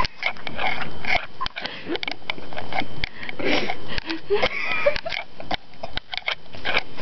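A little girl snoring: a run of noisy, sniff-like breaths through the nose, one building up and breaking off about every second and a half.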